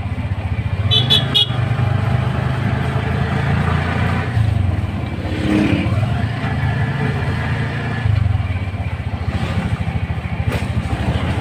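Motorcycle engine of a motorized tricycle running as it rolls through traffic, heard from inside the sidecar, the revs easing and picking up again a couple of times. A brief high chirp about a second in.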